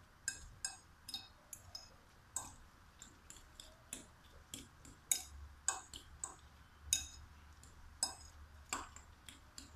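A metal fork clinking and scraping against the sides of a cut-glass bowl while stirring raw egg mixed with grated carrot: irregular bright ticks, about three a second.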